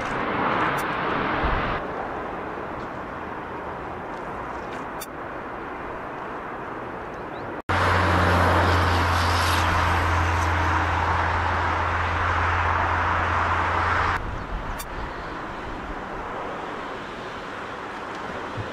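Jet airliner engines on approach and landing, a steady rushing jet noise. It is louder for the first two seconds. After an abrupt cut about eight seconds in it is louder again, over a low steady hum that stops about fourteen seconds in.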